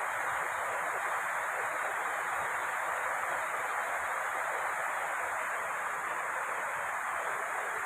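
Steady rain drumming on a corrugated metal roof, an even hiss with no single drops standing out.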